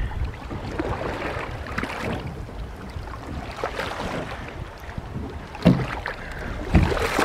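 Wind buffeting the microphone over water sloshing against the side of a small boat, with two sudden knocks near the end.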